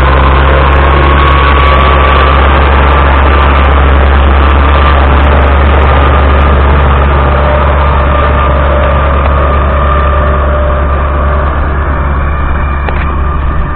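Ursus C-362 tractor's diesel engine running steadily under load while its rotary drum mower cuts grass: a strong low drone with a steady whine over it, growing somewhat fainter in the second half as the tractor moves away.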